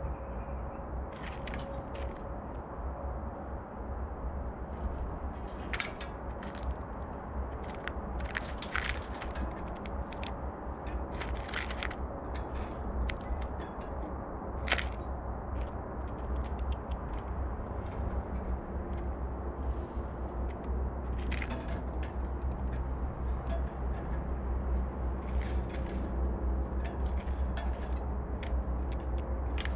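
Blue jays pecking and cracking peanuts at a feeder bowl: irregular sharp clicks and cracks, in clusters, with one sharper crack about halfway through, over a steady low rumble.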